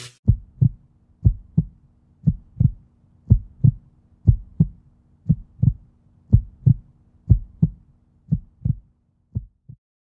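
Heartbeat-style sound effect: pairs of short, low thumps, about one pair a second, over a faint steady hum. The last two pairs are weaker and the hum stops before them.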